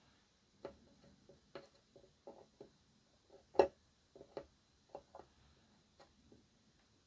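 Irregular light clicks and taps of small tools and parts being handled at an electronics repair bench, with one sharper tap about three and a half seconds in.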